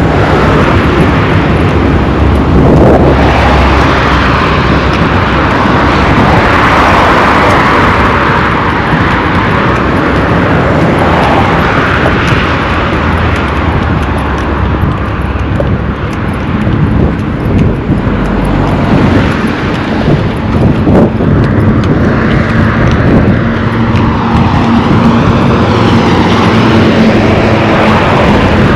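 Road traffic noise: motor vehicles passing close by on a busy road, loud and continuous, swelling as vehicles go past. A steady engine hum comes in during the second half.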